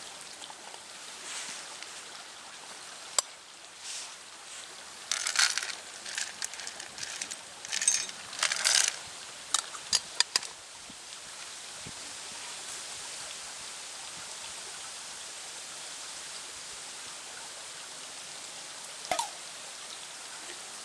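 Wood pellets clinking and rattling into a small steel fire stand in several short pours. A steady hiss follows.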